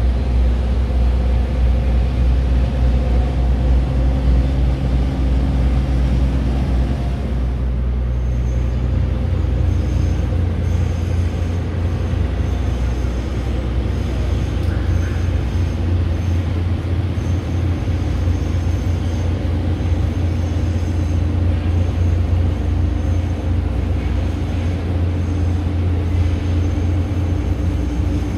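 Steady low drone of a heavy engine running, which changes in tone about eight seconds in to a stronger, deeper hum.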